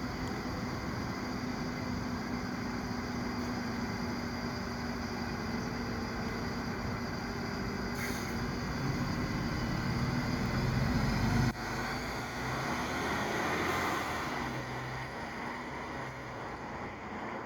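Bus running: steady engine hum and road noise that builds up, drops off sharply about eleven and a half seconds in, then eases down toward the end.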